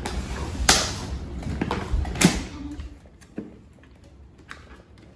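Hard plastic toy suitcase kitchen set being handled: a few sharp clicks and knocks, the two loudest about a second in and just after two seconds, then fainter taps.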